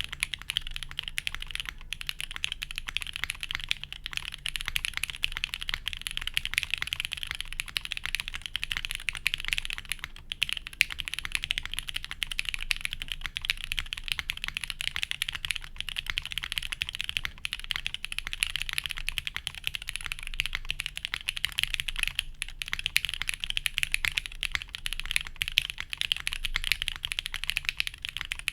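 Continuous fast typing on a Forever65 custom mechanical keyboard: SP-Star Sacramento switches lubed with Superlube, on a POM plate with no dampening, under GMK keycaps. A dense stream of keystrokes with a few brief pauses.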